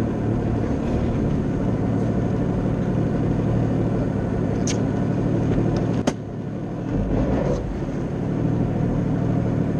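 Jet ski engine idling with a steady low rumble, with two sharp clicks, about four and a half and six seconds in.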